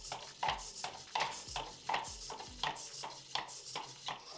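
Bittle, Petoi's small servo-driven robot dog, walking on a wooden table: a steady clatter of its plastic legs and feet tapping the tabletop, about three taps a second.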